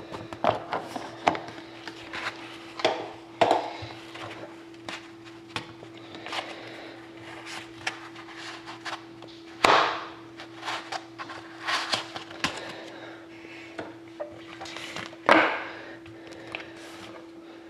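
Hands handling a small cardboard trading-card box and its plastic shrink-wrap: irregular scratches, taps and rustles, with two louder scraping rasps about ten and fifteen seconds in, the second as the card stack is slid out of the box. A faint steady hum runs underneath.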